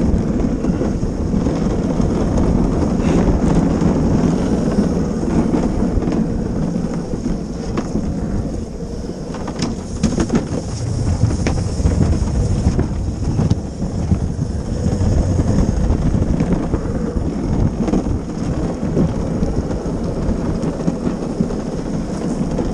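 Gravity luge cart rolling fast down the track, its wheels giving a steady low rumble on the track surface, with a few sharp knocks from bumps about halfway through.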